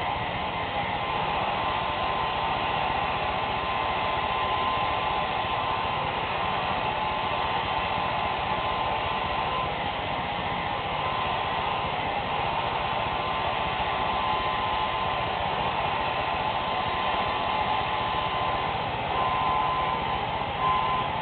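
Handheld hair dryer running steadily, its rush of air carrying a thin steady whine.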